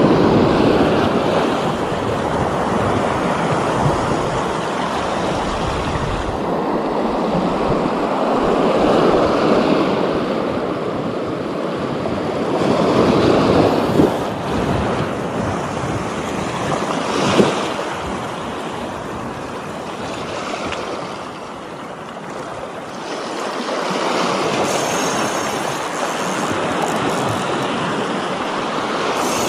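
Sea waves washing onto the beach, a steady rush that swells and ebbs every few seconds. Two short sharp clicks a few seconds apart near the middle.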